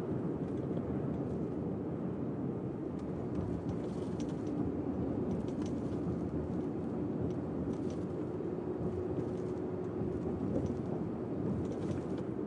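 Steady engine and road noise of a truck being driven, heard from inside the cab.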